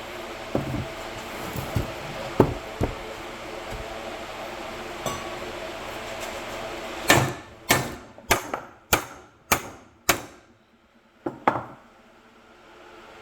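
Hammer blows on a steel brake bracket stuck on with rust and corrosion, knocking it loose: a few lighter knocks, then a run of about six hard metal strikes roughly half a second apart, and two more near the end.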